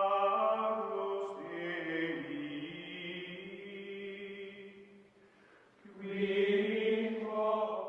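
Background music: slow, chant-like vocal music with long held notes. It fades out about five seconds in and swells back a second later.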